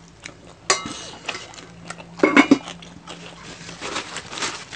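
Eating-table handling sounds: a ringing clink of a small ceramic sauce bowl about a second in, a few louder knocks about halfway through, then a patter of small crackling clicks as crispy fried pork knuckle is pulled apart by hand.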